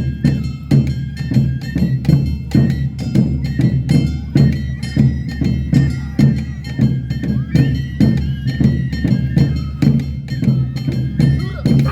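Awa odori festival music: drums and a clanging gong keep a quick, steady beat under a high flute melody.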